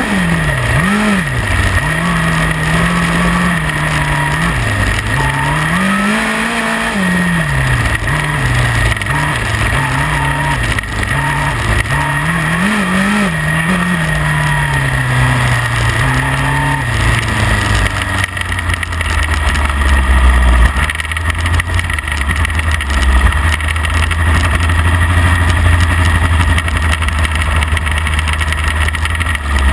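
Midget race car engine heard onboard, its revs swinging up and down again and again, with several sharp dips and recoveries. About 17 seconds in the swinging pitch gives way to a steady low rumble.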